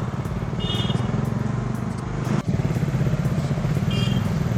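Motorcycle engine running at road speed with wind noise on the rider's microphone. Two short high-pitched tones sound, about a second in and near the end.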